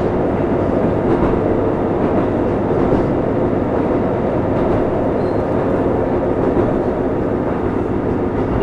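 Steady running noise heard inside a KiHa 25 diesel railcar under way between stations: an even rumble of wheels on rail and the car's drive underneath.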